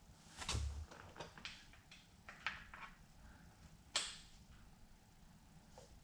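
Scattered light clicks and knocks of small metal bike parts being handled while a greased 6903 pivot bearing is fitted to the swingarm, with a dull knock about half a second in and the sharpest click about four seconds in.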